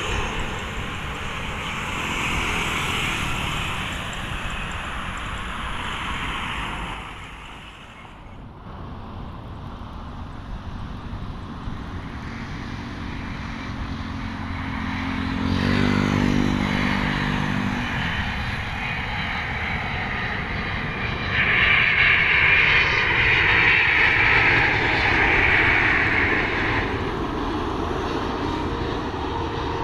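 Jet airliner engines running as aircraft pass close by. The noise drops away sharply about a quarter of the way in, then builds again and is loudest over the last third, with a strong high rushing whine. A short low buzz with a steady pitch comes about halfway.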